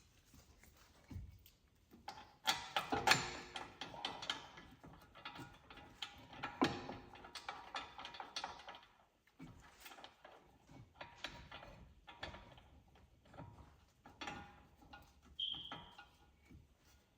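Harbor Freight Icon G2 hand ratchet clicking in quick runs as bolts are spun in on the hub assembly, mixed with clinks and knocks of metal tools and parts. There is a brief high squeak near the end.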